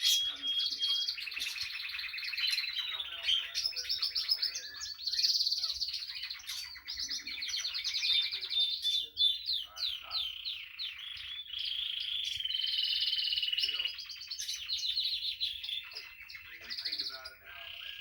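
Female Timbrado canary singing a continuous song of fast trills and rolls, with a few held whistled notes.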